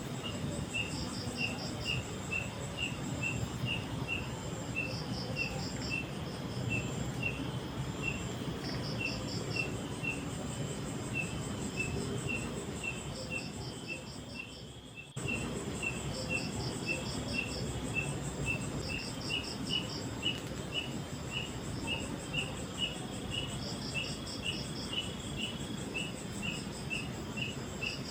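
Crickets and other insects calling: a steady run of short high chirps, about three a second, with a quick pulsed trill every few seconds, over a steady low rushing noise. The sound fades briefly about halfway and cuts straight back in.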